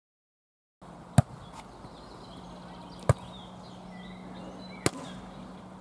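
Volleyball being hit by hand three times, about two seconds apart, as two players pass it to each other on a sand court; birds chirp faintly in the background. The sound begins about a second in after silence.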